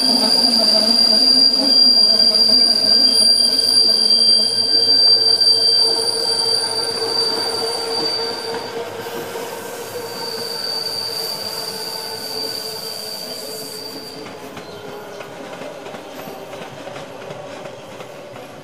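Rhaetian Railway ABe 4/4 electric railcars on a tight curve, their wheels squealing with a steady high-pitched tone over the rolling rumble of the train. The sound fades as the train moves away; the squeal drops out briefly about nine seconds in and stops around fourteen seconds.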